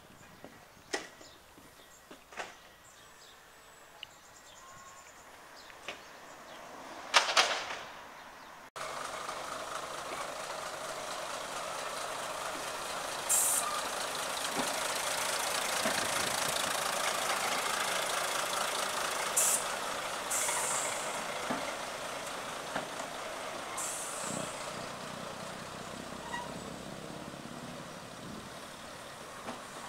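First-generation diesel railcar running slowly past, its engine and wheels making a steady noise that swells and then fades. Short sharp hisses of air from its brakes come four times.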